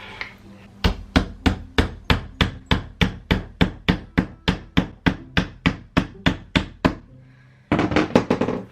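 A hammer striking wooden flat-pack drawer parts to knock them into place: steady blows at about four a second for some six seconds, then after a short pause a quicker flurry of blows near the end.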